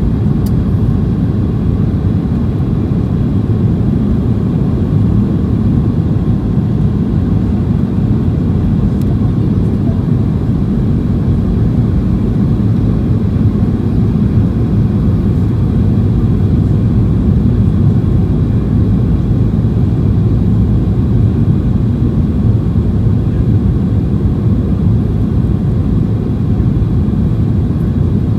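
Steady low rumble of cabin noise inside a Boeing 737-800, with its CFM56-7B engines and airflow heard from a seat over the wing. The noise holds an even level throughout.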